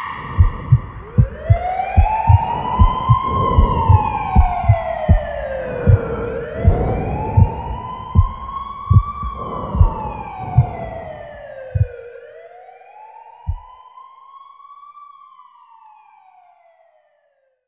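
A wailing siren rising and falling slowly, about three cycles, fading away. Underneath it runs a series of low thumps that stops about twelve seconds in.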